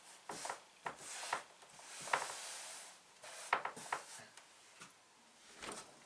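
Rustling and rubbing of a fabric quilt block being pressed and smoothed onto a flannel design wall, with a few light knocks and clicks of handling.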